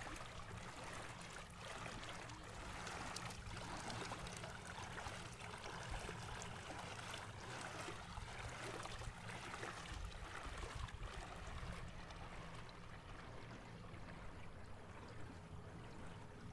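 Water rushing and splashing along the hull of a small electric boat under way, over a low steady rumble. The splashing softens a little after about twelve seconds.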